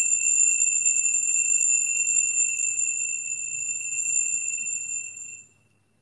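Altar bells shaken in a continuous high, jingling ring, which cuts off about five and a half seconds in. The ringing marks the elevation of the host just after the words of consecration at Mass.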